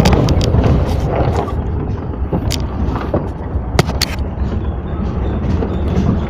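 Steady low rumble of riding along in a moving vehicle, with irregular sharp clicks and knocks throughout.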